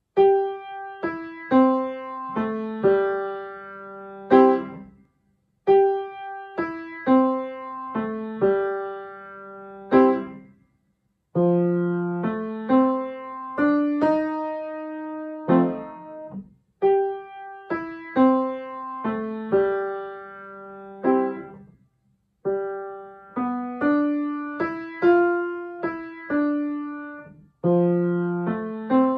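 Upright piano playing a slow, gentle piece in short phrases of about five seconds. Each phrase steps through single notes over a held bass and ends on a sustained note, followed by a brief silence.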